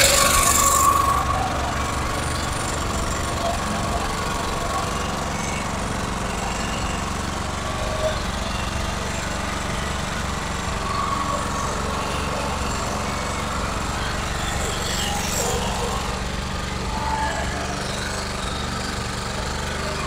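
Sumac Fireman 2.8 kVA generator's small single-cylinder petrol engine running steadily under its own power. It is very noisy, the noise a client complained of along with heavy fuel use. It is a little louder for about the first second.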